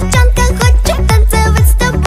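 Background pop music with a steady dance beat: a bass kick about twice a second under a high vocal or synth melody.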